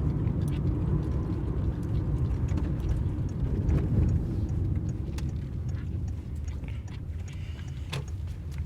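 Engine and road noise of a 2011 Citroen C3 on the move, heard from inside the cabin: a steady low rumble that slowly grows quieter, with a few faint clicks.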